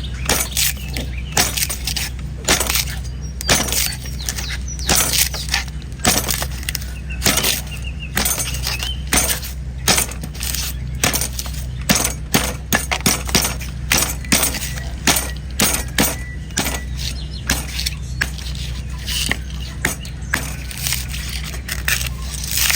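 A sharp knife chopping repeatedly into a coconut's hard, dry husk, in quick, uneven strikes about two a second. A steady low hum runs underneath.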